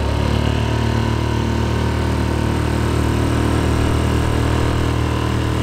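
Mercury 3.5 HP single-cylinder four-stroke outboard motor running steadily at full throttle, pushing the boat forward.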